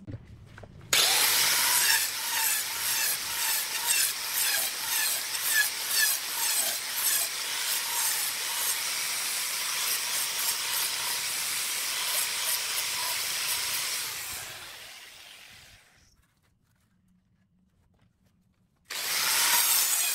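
Handheld electric angle grinder with an abrasive disc sanding the end grain of a wooden vase's rim: it starts about a second in and runs with a steady whine under the rasp of the disc on the wood. It winds down about two-thirds of the way through, and after a few seconds of quiet it starts up again near the end.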